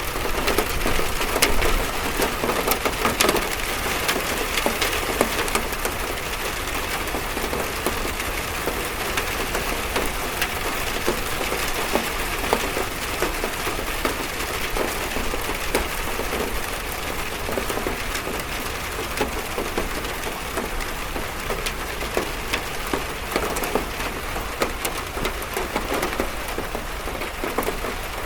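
Rain falling on a metal roof: a steady hiss of drops with many sharp little pattering ticks on the metal.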